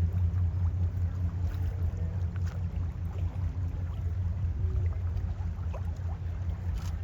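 Steady low rumble of a passing lake freighter's engines, with no pitch changes or breaks.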